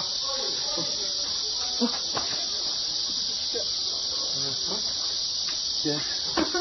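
A steady, high-pitched insect chorus, like crickets or cicadas, with faint voices and a couple of soft knocks underneath.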